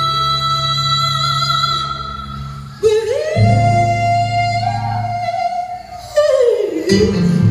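Gospel praise song sung by women with instrumental accompaniment. A long held vocal note fades, then a new note rises in about three seconds in, is held, and falls away near six seconds before the music comes back in.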